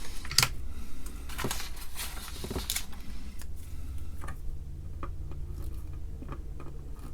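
A few short clicks and rustles of handling, strongest in the first three seconds with fainter ones later, over a steady low hum.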